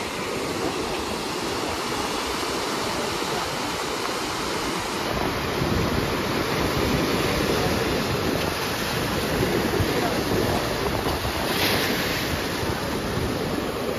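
Sea surf breaking and washing over a rocky seawall, in a steady rush of water, with wind buffeting the microphone. It grows fuller about five seconds in, and a louder wash comes near the end.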